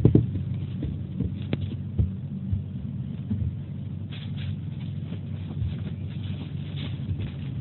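Steady low hum with scattered soft knocks and rustles as small toys are handled and rummaged through.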